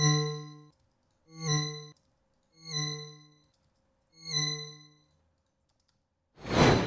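A synthesized note played four times in a row, each about a second long and fading out, all at the same pitch. Near the end a loud whoosh of noise swells up and dies away.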